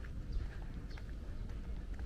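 Footsteps of a person walking on pavement, a light step about every half second, over a steady low rumble of wind on the microphone.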